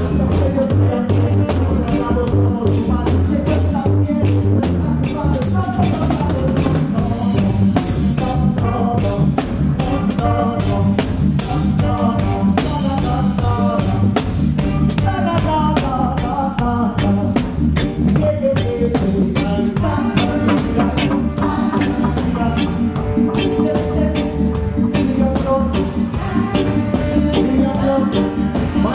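Live reggae band playing: a drum kit with rimshots keeps a steady beat over a heavy bass line, with a man singing into a microphone over it.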